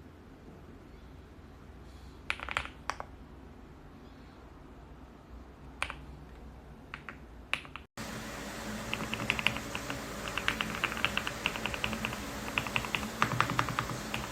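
Keys of a GMK67 mechanical keyboard being pressed. A few separate clacks come first, then, after a brief break about eight seconds in, fast continuous typing.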